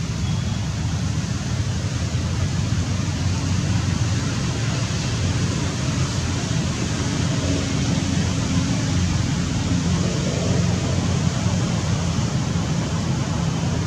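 Steady outdoor background noise: a low rumble with an even hiss over it. No monkey calls stand out.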